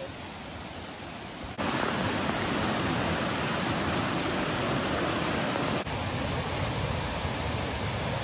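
Mountain stream rushing over rocks and small cascades, a steady full rush of water. It gets clearly louder about one and a half seconds in and shifts slightly near six seconds.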